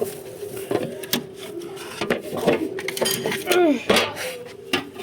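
Indistinct voices over kitchen clatter, a few sharp knocks and clicks, with a steady low hum throughout.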